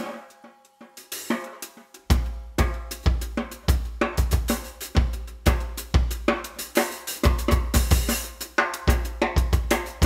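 Music led by a drum kit: sparse cymbal and snare strikes at first, then about two seconds in the bass drum joins in a steady beat of roughly two hits a second under snare, hi-hat and cymbals.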